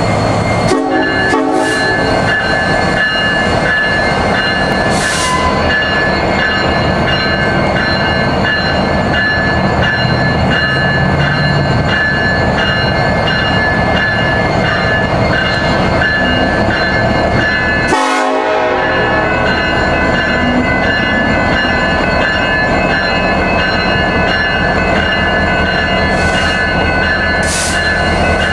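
Diesel freight locomotives hauling a coal train approaching, their air horn held as a loud, steady chord over the engines' rumble, with a brief break about 18 seconds in.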